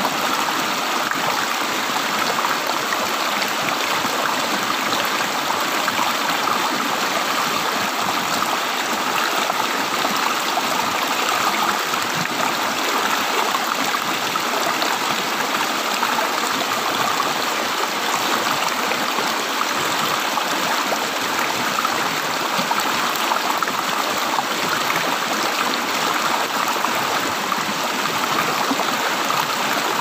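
Shallow mountain stream rushing and splashing over and between rocks, a steady, even flow.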